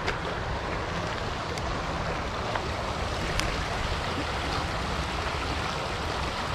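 Shallow stream running over stones in a riffle: a steady rushing of water, with a couple of faint clicks.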